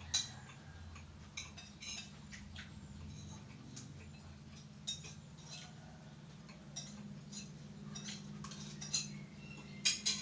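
Spoons clinking and scraping on plates as two people eat, in irregular clinks, the sharpest just after the start and twice just before the end, over a steady low hum.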